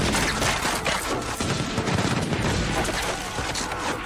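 Dense, rapid gunfire of a battle, with many shots overlapping without a break.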